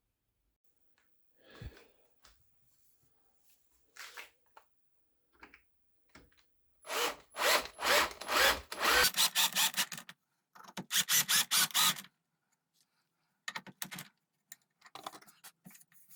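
A power drill working wood in two short bursts, the first about two seconds long and the second about one second, with scattered light knocks and handling noises around them.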